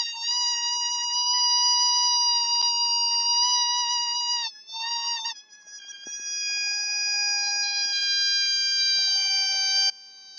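Air squealing out through the stretched neck of a deflating balloon: a steady high-pitched whine that breaks off briefly about halfway, resumes a little lower in pitch, and cuts off suddenly near the end.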